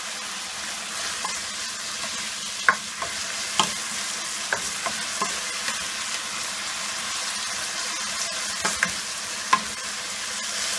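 Small pieces of marinated chicken breast sizzling in hot olive oil in a nonstick pan while being searing-browned, with a steady hiss. They are stirred with a plastic spatula that clicks and scrapes against the pan now and then.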